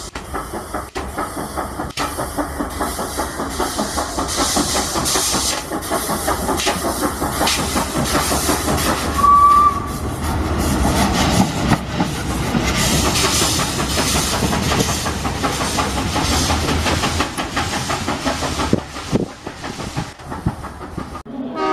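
EIR 21 vintage steam locomotive running slowly past, its exhaust beating steadily over a constant hiss of steam. A brief whistle note sounds about nine seconds in, and the sound thins out near the end into wheels clicking over the rail joints as the coach goes by.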